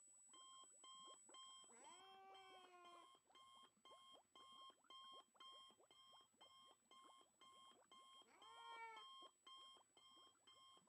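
Faint, rapid electronic beeping like an alarm clock, short beeps at two pitches about two and a half a second. A thin steady high whistle sounds for the first two seconds, and a cat meows twice, about two seconds in and near the end.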